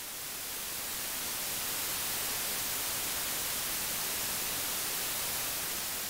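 Steady hiss of static, like white noise, brightest in the high end and swelling up over the first second before holding level.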